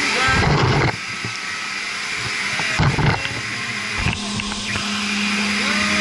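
Steady mechanical whir of running circulating pumps, with loud scraping knocks as a metal rod works against the inside of the pump's cast-iron strainer housing, twice. A low steady hum comes in about four seconds in.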